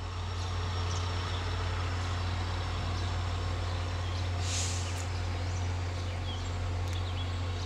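Diesel-electric locomotive (MBTA GP40MC, EMD 16-cylinder 645 engine) running steadily at low throttle as it creeps forward, a deep even hum, with a short hiss about four and a half seconds in.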